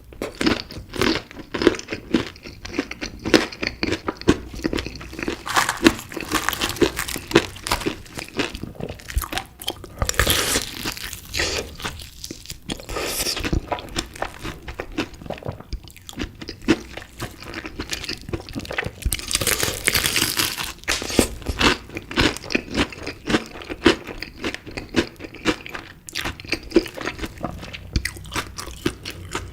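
Close-miked eating of chicken pieces in spicy sauce: crunchy bites and steady chewing, with a few louder, fuller bites along the way.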